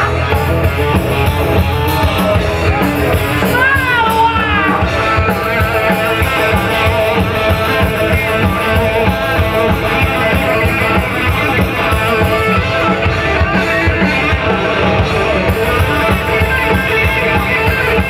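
Live rock band playing: electric guitars, bass and drum kit, with a few bent, wavering notes about four seconds in.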